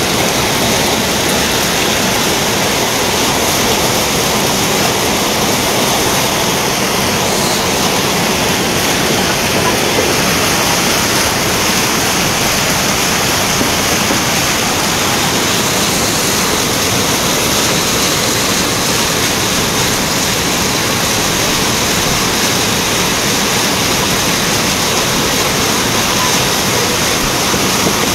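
Fast, muddy floodwater rushing and churning down a street, a loud, steady noise of moving water.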